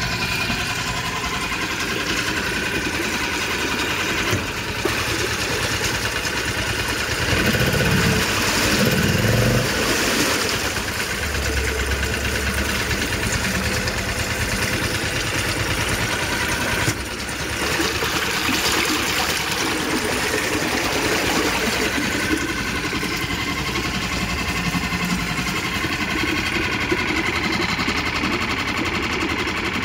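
Yamaha F4 4 hp single-cylinder four-stroke outboard motor running in a water tank, its propeller churning the water. It runs steadily, grows louder for a couple of seconds about eight seconds in, then settles back.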